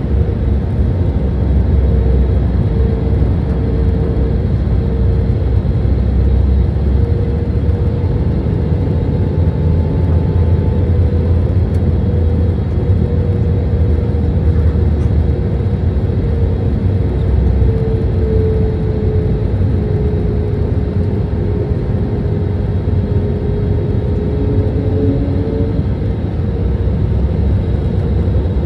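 Airliner cabin noise on descent: a steady low rumble of the jet engines and rushing air, with a humming engine tone that wavers and dips slightly in pitch about two-thirds of the way through.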